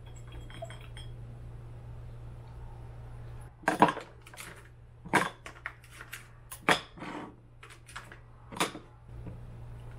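Ice cubes twisted out of a plastic ice tray and dropped into a tall glass of drink: a run of about a dozen sharp clinks and cracks over some five seconds, the loudest near the start, over a low steady hum.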